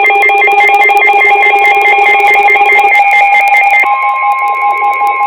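Weather radio alert tones: a rapidly warbling electronic alarm, then about four seconds in the NOAA Weather Radio warning alarm, a single steady tone near 1 kHz, takes over. This signals that a new warning is about to be read.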